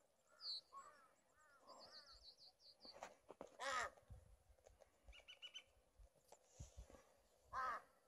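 A crow caws twice, about four seconds apart. Smaller birds chirp high and thin in between.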